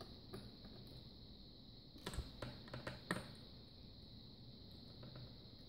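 Faint clicks and taps of hands handling a laptop's plastic and metal display parts, a small cluster of them about two to three seconds in, over a faint steady high-pitched hiss.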